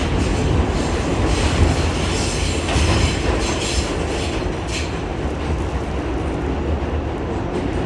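An R46 subway car in motion, heard from inside the car: a steady low rumble of the train running on the rails, with a few clacks of the wheels over rail joints between about three and five seconds in.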